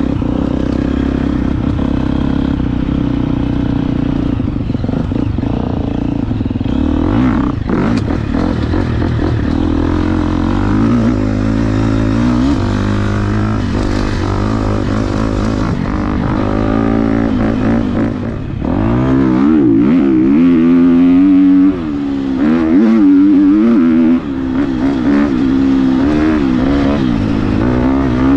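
KTM 250 XC-F dirt bike's four-stroke single-cylinder engine running down a dirt trail, the revs rising and falling as the throttle is worked and gears change. It gets louder, with quicker climbs and drops in pitch, in the second half.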